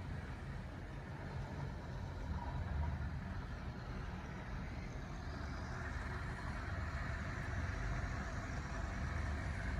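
Steady motor-vehicle noise: a low engine rumble with a hiss of tyres that grows louder from about halfway through.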